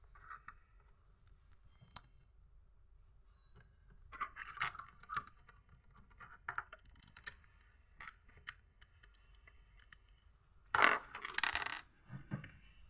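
Small plastic Lego pieces being handled and snapped together: scattered light clicks and clatters, with a louder rattle of pieces near the end.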